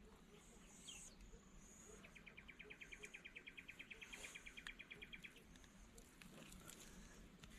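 Faint rapid trill of an insect or bird call, about ten pulses a second, lasting around three seconds from about two seconds in, with a few faint high chirps around it.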